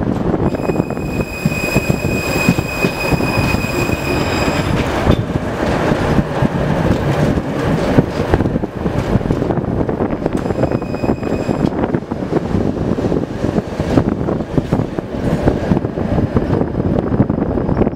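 A 71-623.02 low-floor tram running along the rails with a steady rumbling ride noise. A high-pitched wheel squeal sets in about half a second in and lasts some four seconds, then comes back briefly at about ten seconds in.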